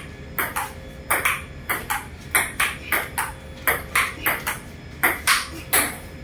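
Table tennis rally: the ball clicking off the table and the paddles in quick pairs about every half second, the rally stopping near the end.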